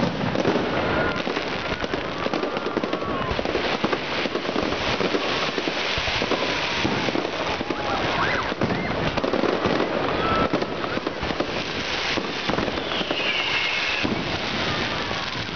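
Fireworks display: a continuous dense crackling of bursting shells with bangs mixed in, and a few short whistling glides.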